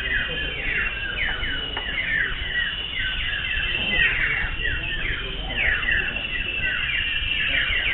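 Several common ioras singing at once: a dense chorus of short, sharp whistles that sweep downward, overlapping without a break.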